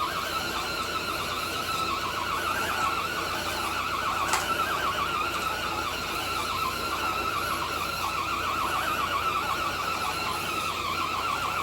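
Axial Bomber RC crawler's electric motor and gearing whining under load as it pulls a sled weighted with three blocks, the pitch wavering steadily throughout. A short sharp click about four seconds in.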